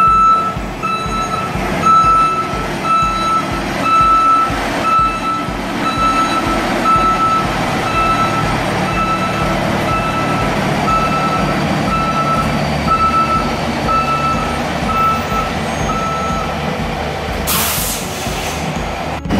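Fire engine reversing: its back-up alarm beeps about once a second over the running diesel engine. The beeping stops and a short air-brake hiss follows near the end.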